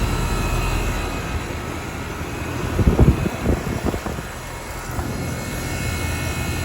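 A 2-ton Trane XE1000 Weathertron heat pump running in cooling mode: a steady hum from its Climatuff reciprocating compressor and the whir of the outdoor fan. A few brief low thumps come about three seconds in.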